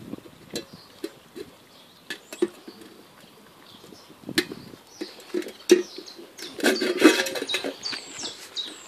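Grand Basset Griffon Vendéen puppies eating meat from a steel bowl: a run of wet smacking and chewing clicks, with the bowl clinking and scraping on brick paving. It gets busier and louder about two-thirds of the way in, with a few short high squeaks near the end.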